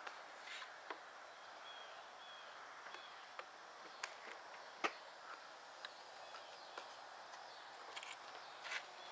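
Faint outdoor background noise, broken by scattered sharp clicks and a few faint high chirps.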